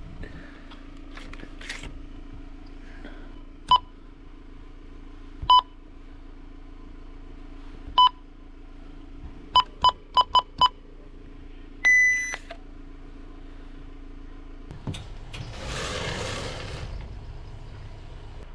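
Keypad beeps of a card payment terminal at a fuel pump: three single key presses a couple of seconds apart, then five in quick succession, then one longer, higher beep as the card payment is refused for lack of funds. A steady low hum sits underneath, and a couple of seconds of rustling come near the end.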